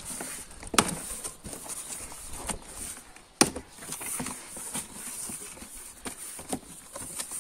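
Cardboard box being opened by hand: the tape is slit and the flaps and packing rustle and scrape. Sharp knocks come about a second in and again about three and a half seconds in.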